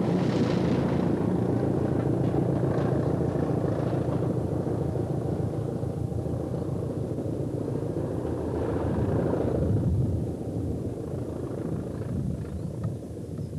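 Diesel-electric multiple unit train running past on curved track, its diesel engine and wheels on the rails making a steady noise that dies away after about ten seconds.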